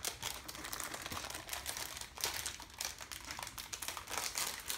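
Foil booster packs of HeroClix miniatures crinkling and rustling as they are handled and opened by hand, with dense, irregular crackles throughout.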